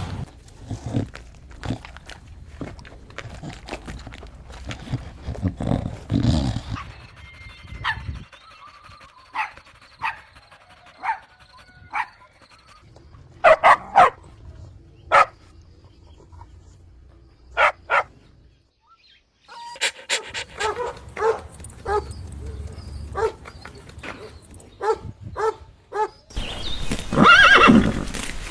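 Dog barks and yips, short separate calls across several cut-together takes. Near the end comes a louder, longer call that runs on, likely a horse whinnying.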